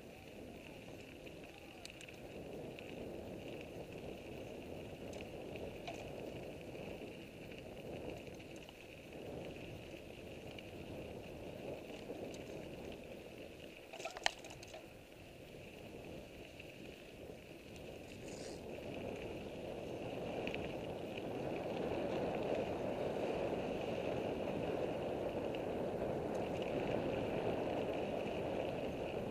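Commencal Meta AM mountain bike riding fast along a gravel dirt road: continuous tyre-on-gravel rumble and frame rattle, with a sharp click about halfway through. The noise grows louder over the last third.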